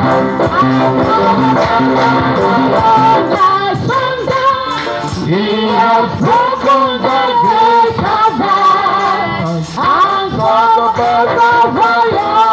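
Voices singing over backing music, with female voices prominent.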